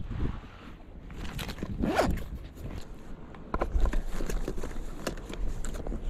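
Rustling and scraping of clothing and hands close to the microphone, with scattered short clicks, while a freshly caught largemouth bass is handled and held up by the lip.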